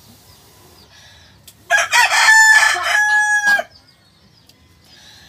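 A rooster crowing once, about two seconds long, ending on a long held note. A faint puff of breath blown onto the kindling of a wood fire comes just before it.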